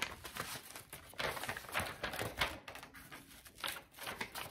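Sheets of paper rustling and tapping in short, irregular handlings: the pages of a hand-written paper book being turned.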